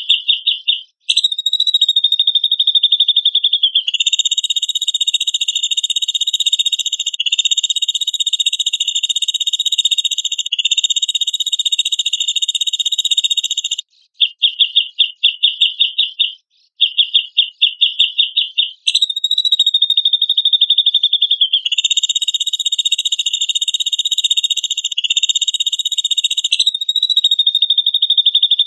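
Looped recording of a grey-cheeked bulbul (cucak jenggot) calling: runs of rapid high pulses alternate with long, buzzy, high-pitched rattling phrases. The same sequence repeats about every fifteen seconds.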